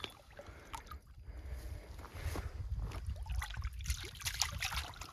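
Water splashing and trickling, with crackling strokes that thicken in the second half, over a fluctuating low rumble.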